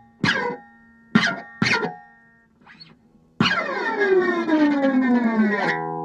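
Electric guitar with a locking tremolo bridge, its strings worked with a screwdriver. Three short notes in the first two seconds each bend down in pitch. A long note begins about halfway through, falls steadily in a glide and settles into a held tone near the end.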